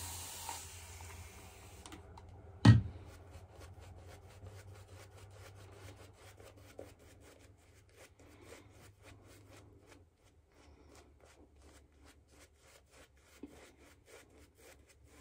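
Synthetic-knot shaving brush working soap lather on the face: a soft, scratchy rubbing of bristles through the lather, made of many fine crackling ticks that grow fainter later on. A hiss in the first two seconds and one sharp knock about three seconds in.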